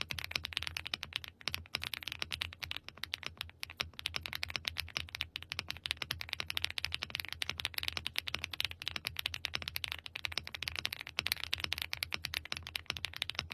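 Fast, continuous typing on a stock Inky 75 gasket-mounted aluminium mechanical keyboard: a dense stream of keystroke clicks with the creamy switch sound the board is praised for, and no stabilizer rattle.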